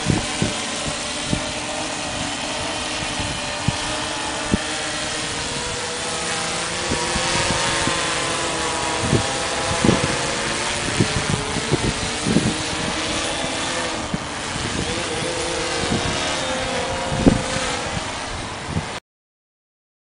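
Mariner waterproof quadcopter's motors and propellers buzzing overhead, the pitch wavering up and down as it holds against gusty wind, with wind buffeting the microphone in short low thumps. The sound cuts off suddenly near the end.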